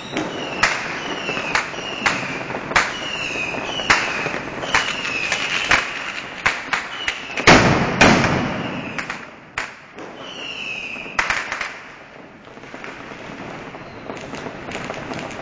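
Street fireworks and firecrackers going off in quick succession: a run of sharp bangs, many followed by a short falling whistle. The loudest blasts come about halfway through, and the bangs thin out in the last few seconds.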